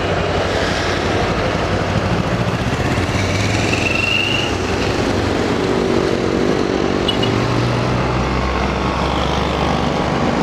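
Road traffic heard from a moving vehicle: an engine running with its pitch rising and falling, over steady road and wind noise. A brief high whine sounds about four seconds in.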